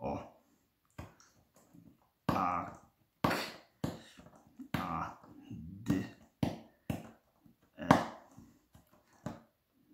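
Saddle-type braille stylus punching dots one at a time through paper into a plastic braille slate: irregular sharp taps and clicks, roughly two a second.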